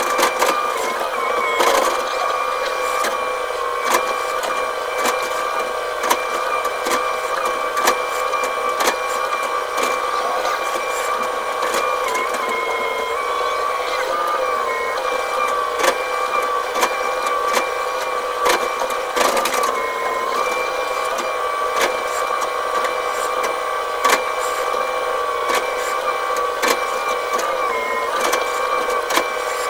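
Hydraulic excavator running under work, heard from inside the operator's cab: a steady engine-and-hydraulic whine whose pitch sags briefly a few times, with frequent clicks and rattles over it.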